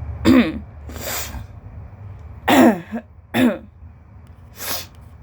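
A woman coughing hard three times, each cough falling in pitch, with noisy breaths drawn in between them.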